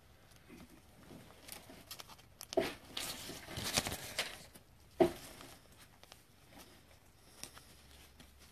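Faint rustling and clicking of a die-cut trading card being handled and worked into a protective holder. Two sharper clicks come about two and a half seconds apart, with a short rustle between them.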